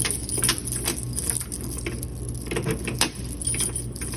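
Scattered clicks, knocks and light rattles of items being handled in an open vending machine as its selections are changed out, over a steady low hum.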